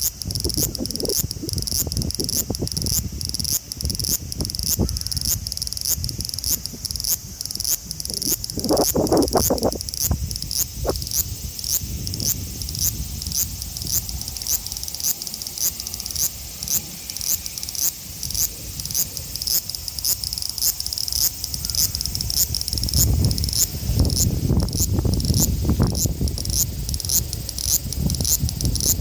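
A male large brown cicada (Graptopsaltria nigrofuscata) sings a high, sizzling song that pulses evenly about twice a second. A low rumble comes in briefly around the middle and again near the end.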